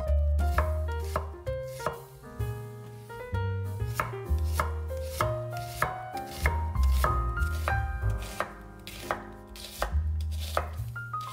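Knife chopping on a cutting board, a few irregular strokes a second, over background music with a stepping melody and a low bass line.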